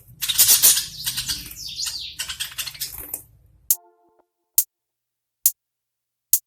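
Budgies chattering and chirping for about three seconds. The sound then cuts off, leaving a short musical note and three sharp ticks spaced about a second apart.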